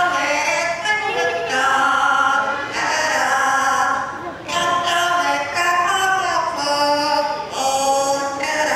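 Voices singing in a choir-like blend, with long held notes that slide between pitches.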